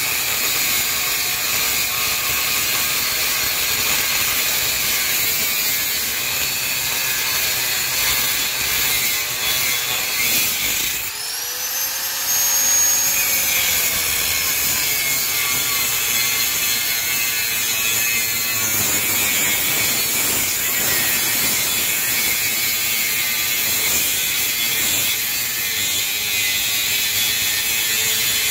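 Angle grinder with a cutting disc cutting through a Kawasaki Ninja R's steel motorcycle frame, the disc grinding steadily against the metal. About eleven seconds in the grinder briefly drops off and then spins back up, its pitch rising and then sinking slowly as the disc bites again.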